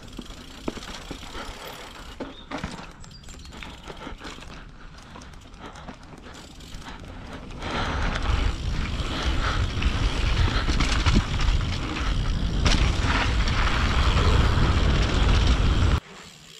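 Mountain bike riding down a dirt trail, heard from the rider's camera: tyres rolling over dirt with scattered knocks and rattles from the bike. About eight seconds in, a louder rushing of wind on the microphone takes over as the bike picks up speed. It cuts off abruptly near the end.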